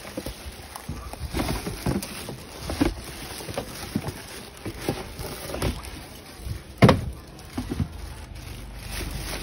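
Clear plastic bag crinkling and a cardboard carton scraping and knocking as a plastic-wrapped air fryer is pulled out of its box. The crinkles and scrapes come in short, irregular bursts, with one louder knock about seven seconds in.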